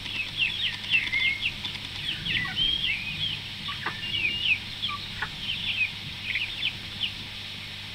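Silkie chicks peeping: a quick run of short high cheeps that thins out in the second half and stops about seven seconds in.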